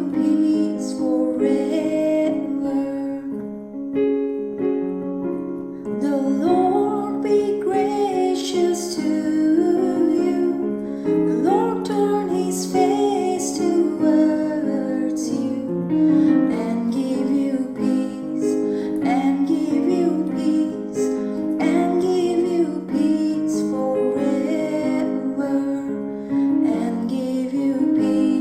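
Slow music played on a keyboard with a piano sound, sustained chords under a moving melody.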